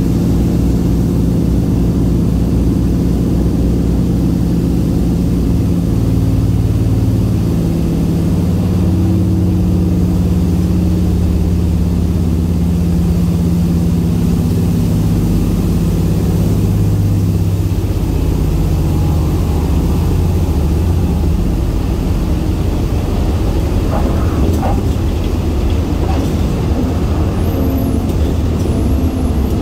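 De Havilland DHC-4 Caribou's two Pratt & Whitney R-2000 radial engines and propellers droning steadily on landing approach, the engine note stepping down a couple of times as power is reduced. Late on, a few short thumps as the main wheels touch down, then the tyres rolling on the runway.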